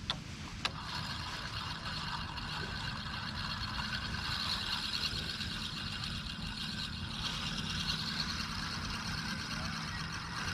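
A steady engine hum with a high hiss over it. Two sharp clicks come within the first second.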